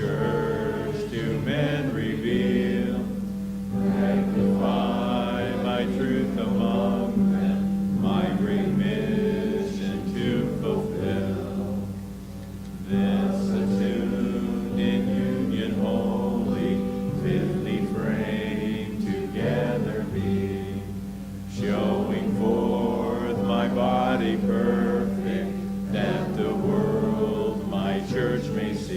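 Congregation singing a hymn over instrumental accompaniment that holds a steady low note, in sung lines with short breaths between them.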